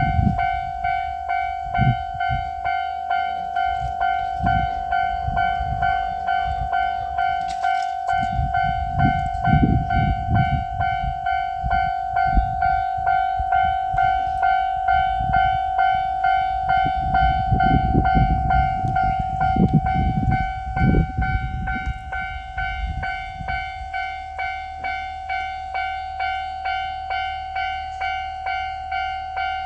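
A railroad crossing's electronic warning bell rings on and on in an even, repeating ding. From about 8 to 23 seconds in, a JR Shikoku 9000-series rail transport car rumbles past, its wheels clacking over the rail joints.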